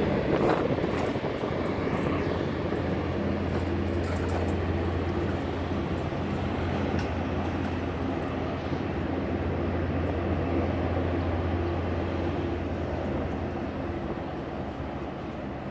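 Hovercraft's engines and ducted propellers running, a steady low drone with a hum beneath it. The craft is heading away at speed across the water, and the sound eases off slightly and its lowest hum drops out near the end.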